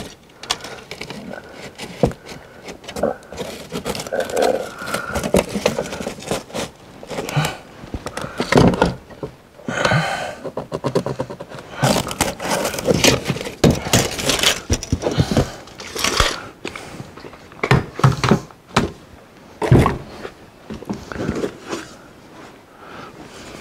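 Irregular knocks, scrapes and rustling of hands, a tape measure and a pencil working over plywood and rotten roof decking on a camper roof, as the rotten area is measured and marked out.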